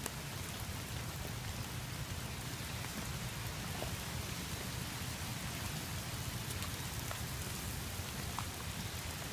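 Steady, even hiss of water, rain or runoff, with a low rumble underneath.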